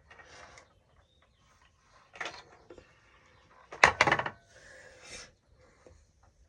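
Hard objects being handled: a short scrape about two seconds in, then a louder rattling clatter of several quick clicks about four seconds in.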